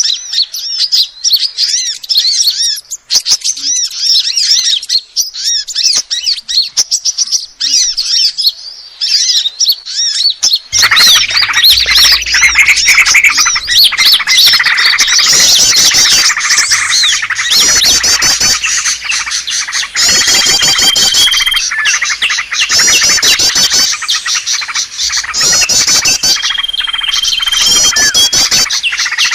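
Bird-lure recording of small songbirds calling. For the first eleven seconds a single bird gives rapid, high, repeated chirps. Then it becomes a dense chorus of many overlapping chirps, trills and whistles over a low hum, with two long steady whistles in the second half.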